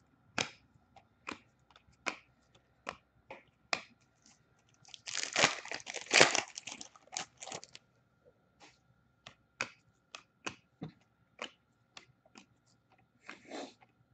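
Trading cards being handled, with sharp light clicks of card on card every half second or so. About five seconds in comes a few seconds of crinkling and tearing as a hockey card pack wrapper is torn open.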